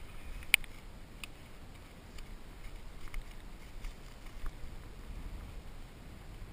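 Low wind rumble on the microphone, with one sharp click about half a second in, a second click soon after and a few fainter ticks later.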